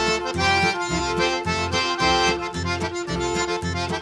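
Background music: Cajun-style accordion tune over a steady bass beat.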